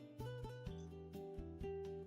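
Music led by plucked guitar, with notes picked in quick succession over a steady bass line.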